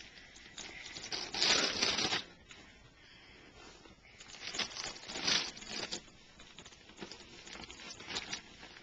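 Gift wrapping paper being torn and crumpled by a small child's hands, in several rustling bursts, the loudest about a second and a half in and another around the middle.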